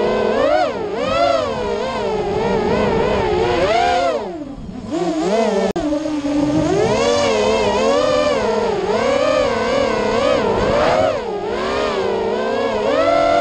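Racing quadcopter's electric motors whining, the pitch climbing and falling as the throttle changes. About four seconds in the throttle drops and the whine sinks for a moment, then rises again.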